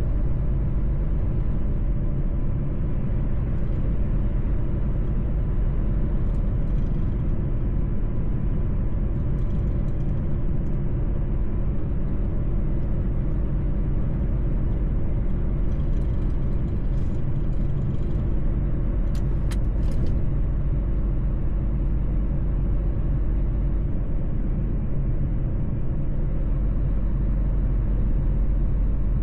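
Mercedes-Benz truck on the move: steady engine and road noise, mostly low in pitch, with a few faint clicks about two-thirds of the way through.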